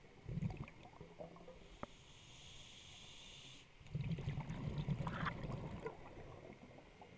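Scuba diver's exhaled bubbles rumbling up from the regulator, heard underwater: a short burst near the start and a longer one from about four seconds in, with faint clicks and crackles between.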